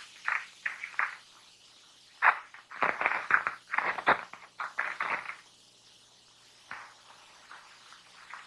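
Paper rustling in a run of short, irregular bursts, mostly in the first half with one more later: pages from a small notebook being handled, torn and crumpled as tinder for a fire.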